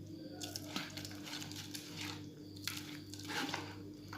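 Spoon mashing and stirring a wet chermoula spice paste in a bowl: irregular soft squelches and scrapes.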